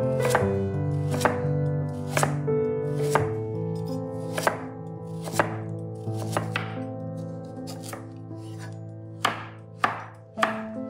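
Knife chopping vegetables on a cutting board, with irregular strokes about one or two a second, over background music with held notes.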